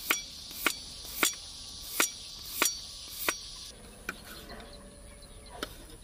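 Knife chopping a garlic clove on a wooden cutting board: six sharp chops at an even pace, about one every half second, then two fainter knocks. Crickets chirp steadily behind the first chops, then cut off suddenly after about three and a half seconds.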